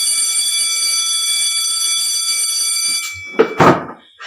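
A steady electronic buzzer tone, one unwavering high pitch, held for about three seconds and then cut off abruptly. A brief noise follows just before the end.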